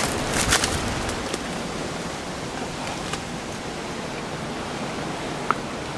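Ocean surf breaking over coastal rocks: a steady wash of noise, with a few brief clicks about half a second in and again near the end.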